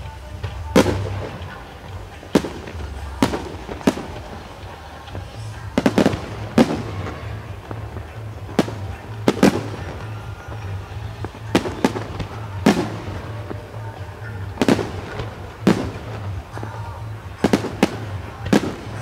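Aerial firework shells bursting, sharp bangs at uneven intervals of about a second, some in quick pairs, over a steady low hum.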